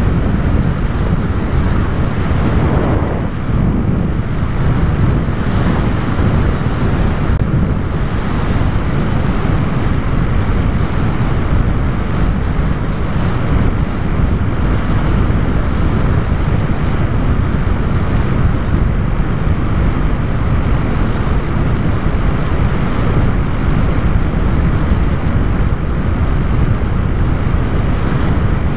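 Loud, steady rush of wind and propeller noise on the microphone of a camera riding aboard a radio-controlled model plane in flight.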